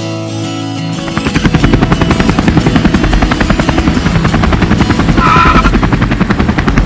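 The guitar music stops about a second in and a loud, fast, steady chopping pulse with a deep low end takes over. A brief tone sounds over it about five seconds in.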